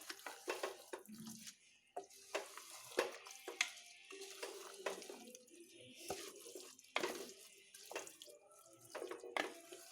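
Ladle stirring a rice and masala mixture in a pressure cooker: irregular scrapes and knocks of the spoon against the pot.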